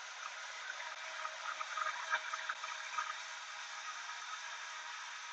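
Vitamix blender running steadily, pureeing spinach and eggs, heard as a faint, thin, even hiss.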